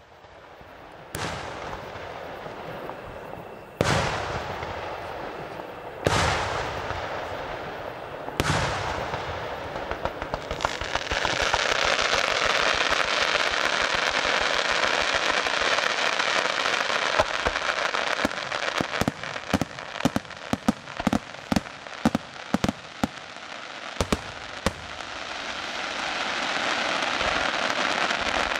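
Fireworks display: four loud single bangs about two seconds apart, then a continuous dense crackle with a fast run of sharp cracks in the middle, as comets and fountains fire from ground level.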